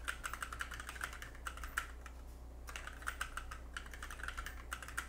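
Typing on a computer keyboard: two quick runs of key clicks with a short pause about two seconds in, over a faint steady low hum.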